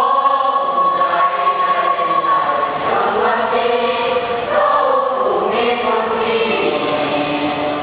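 A school choir of children singing in parts, with sustained sung phrases that change pitch every second or two.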